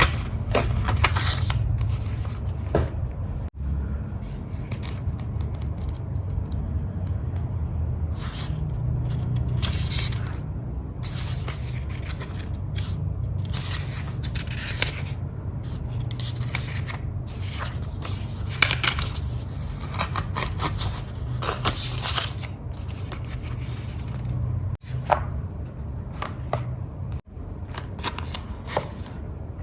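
Scissors cutting paper: an irregular run of short snips and scraping strokes.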